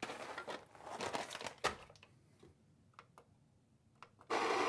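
Coffee beans rattling out of a crinkling foil bag into the hopper of a Baratza Vario burr grinder, then a sharp clack and a few light clicks at its buttons. Near the end the Vario's motor starts and runs steadily, grinding.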